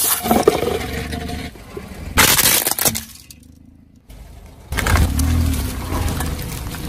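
A car tyre rolls over and crushes objects on asphalt: a loud crunching stretch at the start and a sharp crack about two seconds in. After a short lull, a bunch of bananas is flattened under the slowly rolling tyre with a low rumble.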